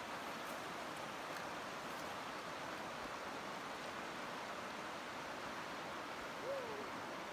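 Drift Creek flowing over rocks and riffles: a steady rushing of water. Near the end there is a brief call, rising then falling in pitch.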